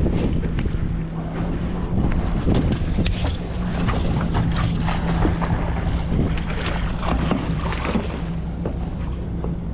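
Boat motor running steadily, with wind buffeting the microphone and scattered short knocks and splashes.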